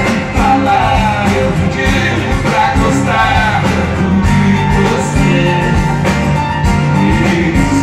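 Live sertanejo band performance: a male lead singer over acoustic guitar and a full band with a steady beat.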